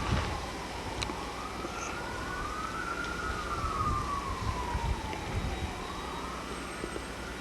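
Emergency vehicle siren wailing, its pitch rising and falling slowly about every four seconds.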